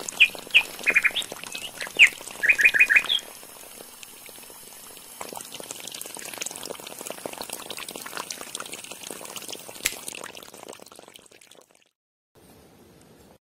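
A small bird chirps in quick short notes for about three seconds, ending in a rapid run of five. Then comes a softer patter of water trickling and splashing from a thin pump hose, which fades out near the end.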